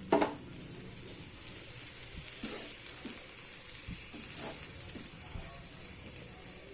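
Dry anchovy masala sizzling in a frying pan after water has gone in. There is a sharp utensil knock just after the start, then a few light clicks and scrapes of stirring.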